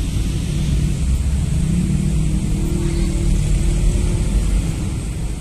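Road traffic: cars and vans moving past with their engines running, a steady low rumble with an engine hum that rises a little around the middle.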